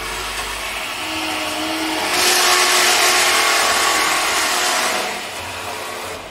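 Metal-cutting circular saw (cold saw) running and cutting through steel stock. The cut is loudest from about two to five seconds in, then eases off near the end as the blade finishes.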